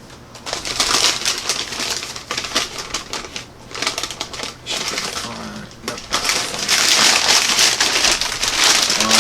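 A cardboard box and its packing being torn open and handled: dense, irregular crackling and crinkling that eases off briefly partway through, then picks up again.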